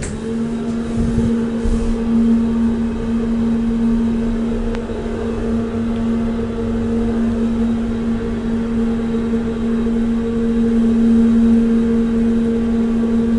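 Deve Schindler hydraulic elevator's pump motor running with a steady hum: one low tone with a second tone above it.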